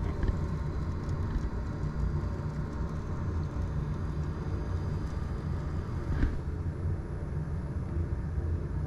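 Prusa XL 3D printer running its automatic dock calibration and tool-change test, its motors moving the toolhead carriage along the gantry with a steady low hum. A faint thin high whine comes in about halfway through.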